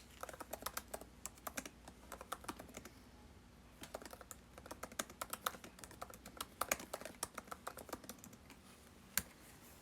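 Typing on a computer keyboard: quick runs of light key clicks, a brief pause partway, and a single sharper click near the end.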